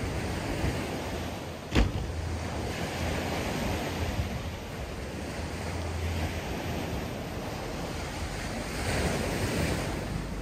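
Small waves washing onto a sandy beach, with wind buffeting the microphone. A single sharp knock about two seconds in stands out as the loudest moment, and the wash swells near the end.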